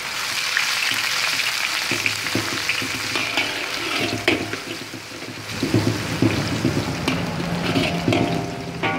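Sliced onions sizzling in hot oil in a metal wok, a steady frying hiss, with a spatula scraping and clicking against the pan as they are stirred.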